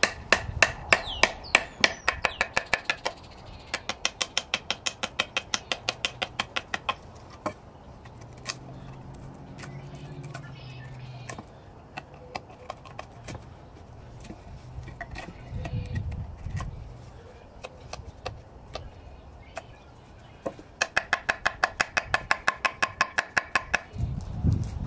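Even, rapid knocks of a steel bushcraft knife being struck into wood, about three a second, each with a slight ring. They come in three bursts: at the start, again around four to seven seconds in, and near the end. Scattered single taps fall in between.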